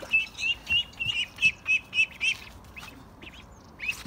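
Ducklings peeping: a quick run of short, high peeps, about four a second, that pauses briefly and starts again near the end.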